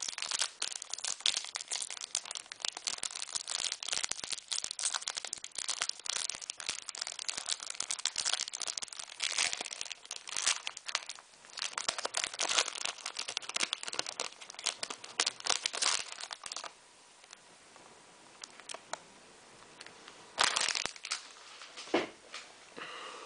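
Trading-card packaging crinkling and tearing as it is opened by hand: a dense, irregular rustle that stops about three-quarters of the way through, followed after a pause by two short rustles near the end.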